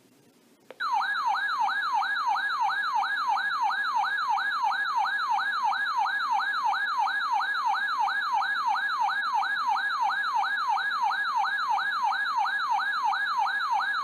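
Weather radio receiver's built-in alert alarm sounding a loud siren-like warble, sweeping up and down about three times a second. It starts about a second in and cuts off sharply near the end. The alarm signals an incoming Severe Thunderstorm Warning.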